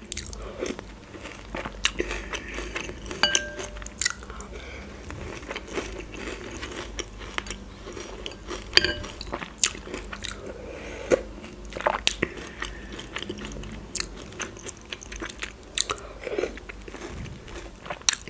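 Close-miked chewing and crunching of milk-soaked, chocolate-filled cereal pillows eaten by the spoonful, in many short irregular crackles. Now and then a metal spoon clinks against the glass bowl with a brief ring.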